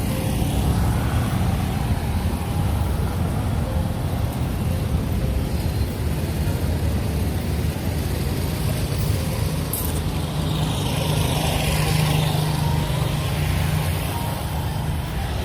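Road traffic: a steady low rumble of vehicle engines, with one engine note growing louder about ten seconds in and holding for a few seconds.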